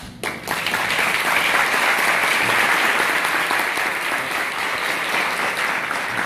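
An audience applauding: dense, steady clapping of many hands.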